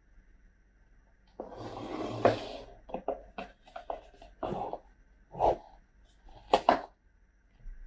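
Foil lid of a paper instant-noodle cup being pulled back and handled: a long crackling rustle about a second and a half in, then a string of short foil crinkles.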